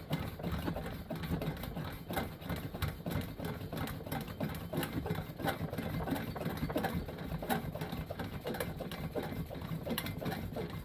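The hand pump of a Coleman 220J lantern being worked, a steady run of rapid, even plunger strokes that pressurize the fuel tank.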